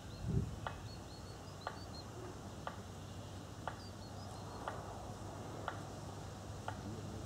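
Regular ticks about once a second from a regatta start countdown timer, with faint bird chirps and a single low thump just after the start.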